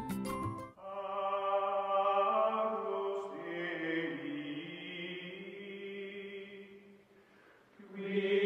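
Slow, chant-like vocal music: voices hold long notes in a chord. The chord fades to a low ebb about seven seconds in and swells back a second later.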